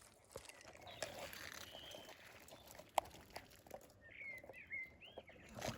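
A small bird's quick run of short chirps about four seconds in, over faint rustling, with a single sharp click near the middle.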